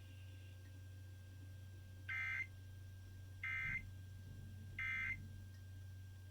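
Emergency Alert System end-of-message signal: three short bursts of warbling data tones, evenly spaced about a second and a half apart, over a steady low hum.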